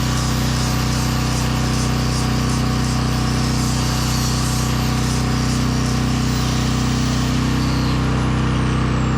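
A portable generator runs with a steady drone under an electric sander working on carved wood. The sander's high hiss fades about seven and a half seconds in, and its whine falls in pitch as it winds down.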